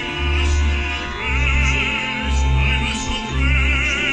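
Live opera: a singer holding notes with wide vibrato over instrumental accompaniment, with deep bass notes sounding about once a second.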